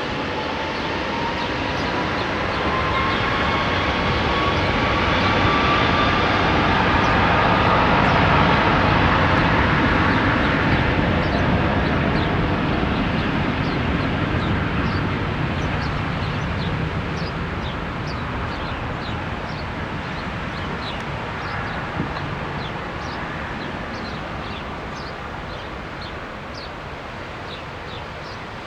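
Airbus A330 twin-engine jet taking off: the turbofan engine noise swells as it passes, with a whine rising in pitch over the first few seconds, peaks about eight seconds in, then slowly fades as the plane climbs away. Faint bird chirps repeat in the second half.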